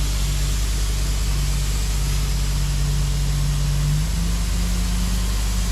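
Excavator diesel engine running steadily, its pitch stepping up slightly about four seconds in, with a steady hiss over it.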